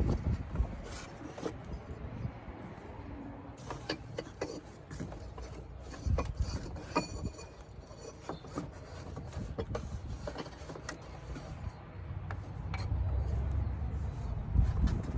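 Cardboard box being handled while an item is worked out of it: irregular rubbing, scraping and light knocks, with a low rumble building near the end.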